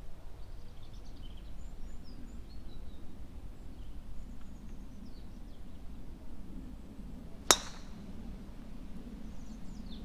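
A golf club striking a ball off the tee: one sharp, metallic crack with a brief ring, about seven and a half seconds in. Birds chirp faintly before it.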